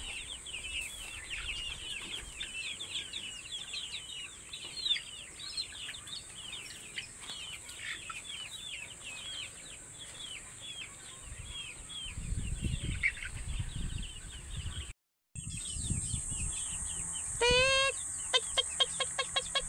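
A brood of days-old chicks peeping rapidly and continuously. About fifteen seconds in, the sound cuts out abruptly. A chicken then gives one loud call, followed by a quick, even run of short clucks.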